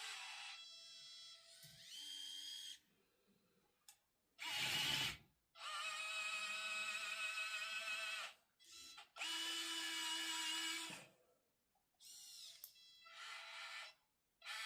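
Small electric gear motors of a 1:50 scale RC excavator whining in separate bursts of about one to two and a half seconds, stopping and starting as its functions are worked. About four and a half seconds in there is one short, louder, rougher burst.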